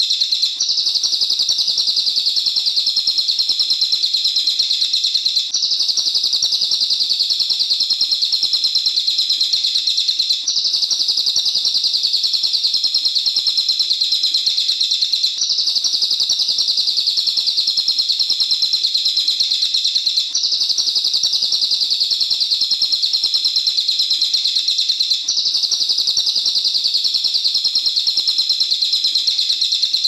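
Brown cililin (crested jay) in a cage giving a loud, unbroken, high rapid rattling trill. The same stretch of song starts over about every five seconds.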